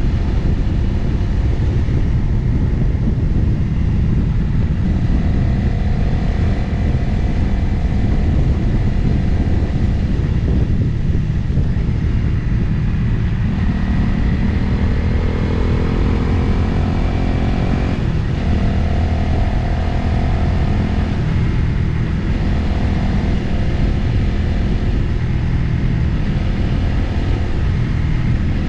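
Motorcycle engine running while riding, with wind rushing over the microphone. The engine pitch climbs about halfway through and drops back a few seconds later.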